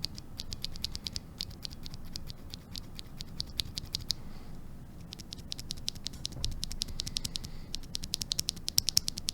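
Loose Cherry MX Black Hyperglide linear switches pressed rapidly by hand, giving quick runs of plastic clicks: one run, a short pause about four seconds in, then a second run. It is a stock switch and one lubed with Krytox 205g0, filmed and spring-swapped, sounded side by side.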